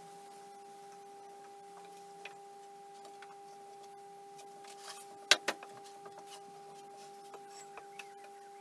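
Wooden boards being handled on a table saw's table, giving a few light clicks and a sharp pair of knocks about five seconds in, over a steady high hum. The saw itself is not running.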